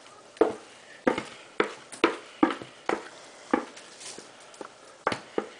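Thick rice-and-soup mixture being knocked and scraped out of a plastic mixing bowl into a glass casserole dish: about ten sharp knocks, roughly two a second, irregularly spaced.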